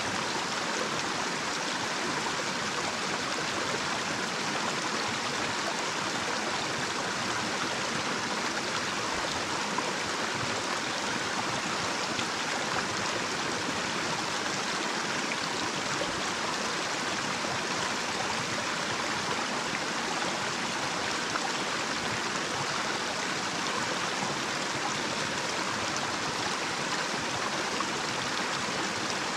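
Water of a small, shallow stream running over a little cascade: a steady, even rush of flowing water.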